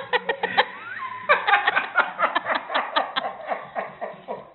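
Laughter: a run of quick, short bursts repeating several times a second.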